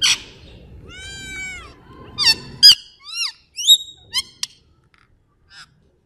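Rose-ringed parakeet screeching: a sharp squawk, a longer arching call about a second in, then a quick run of short, sweeping screeches, with one last faint call near the end.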